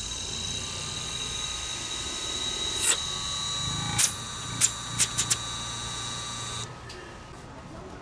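LG inverter rotary compressor driven by a Mitsubishi FR-E720 inverter: a steady high whine from the drive with a faint tone slowly rising, a low hum joining about halfway, and several sharp clicks, then it cuts off suddenly near the end as the compressor stops. The running is short-lived, which the owner puts down to the inverter's capacity likely being too small for this compressor.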